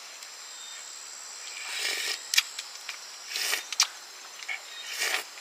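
Insects buzzing steadily at a high pitch, with several brief noises from something being handled, about a second apart.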